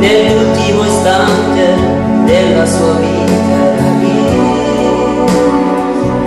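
A man singing a slow Italian gospel song into a microphone, accompanied by sustained chords on electronic keyboards through a PA.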